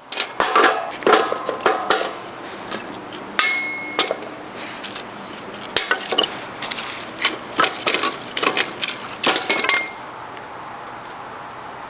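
Clinks and knocks of dishes or cookware being handled and set down, with two short metallic rings among them.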